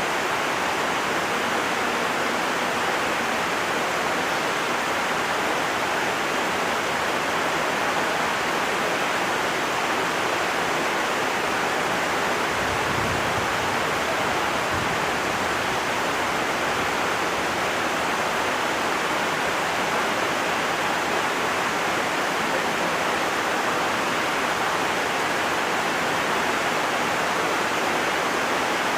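Heavy rain falling in a steady, unbroken downpour hiss, with a faint low rumble about halfway through.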